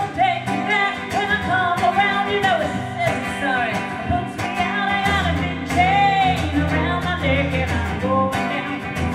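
Two electric guitars playing a song under a sung vocal melody.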